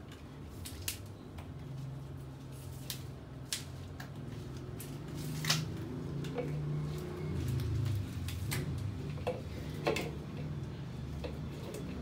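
Scattered, irregular clicks and knocks of kitchen prep work, a knife and utensils on a cutting board, over a low steady hum.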